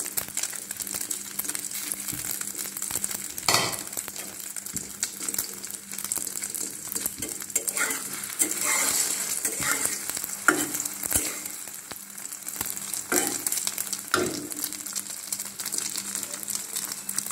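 Egg frying in ghee in a metal karahi, sizzling and crackling steadily, with several short scrapes and taps of a spatula against the pan.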